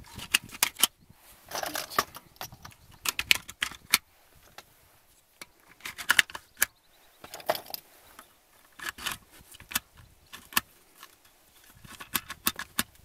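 12-gauge shotgun shells being pushed into a Molot Vepr-12's polymer box magazine: irregular clusters of sharp clicks and clacks as the brass shell bases scrape and snap past the magazine lips. The loading is stiff, with each shell's rim catching in the extractor groove of the shell below.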